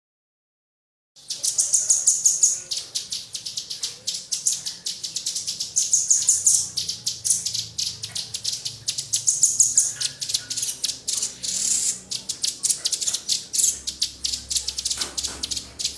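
Small songbirds chirping in a fast, dense run of very short high notes, coming in loud surges; the sound starts suddenly about a second in after silence.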